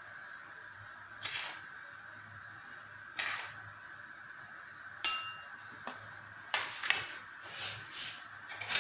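Glass dessert cups being handled on a counter: scattered light knocks and taps, with one sharp clink that rings briefly about five seconds in.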